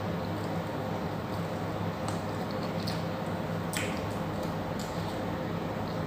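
Close-up wet chewing and mouth sounds of someone eating goat meat off the bone, with a few sharp clicks. A steady low hum runs underneath.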